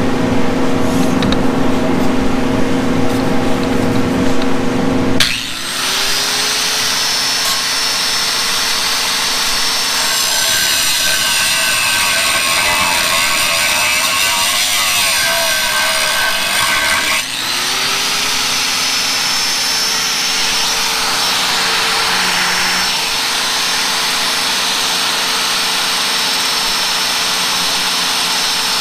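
Chicago Electric angle grinder cutting into the steel frame of a garden tractor: a steady, loud motor whine with the grinding rasp of the disc on metal. Twice, about five seconds in and again after seventeen, the sound shifts abruptly and the motor's whine rises back up to speed.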